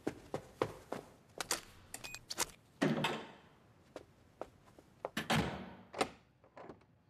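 Quick footsteps on a hard floor, then clicks of a door lock and handle and the door swinging open. About two seconds later the door shuts with a thud, followed by a few small clicks.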